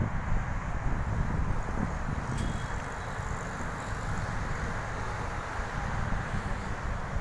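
Outdoor street noise with wind buffeting the microphone, a steady low rumble of traffic underneath, and one short click about two and a half seconds in.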